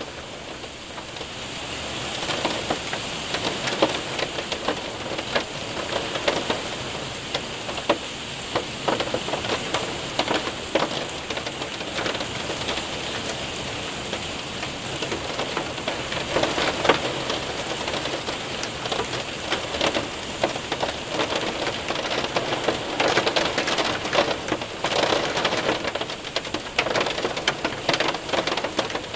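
Hail and rain hitting a window and roof: a dense patter of many sharp ticks over a steady rush of rain.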